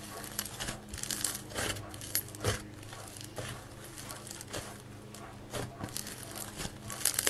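Thick white clay slime being kneaded, squeezed and stretched by hand: a dense run of irregular crackles and sticky tearing sounds as it folds and pulls apart, with a few louder pops.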